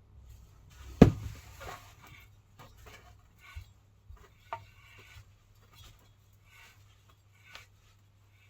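A sharp metallic knock about a second in, followed by scattered lighter clinks and taps of metal tools and parts being handled during car suspension work.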